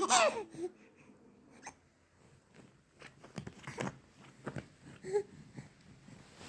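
A baby's high-pitched laugh ending in the first half-second, then mostly quiet with a few faint short clicks and a brief small vocal sound about five seconds in.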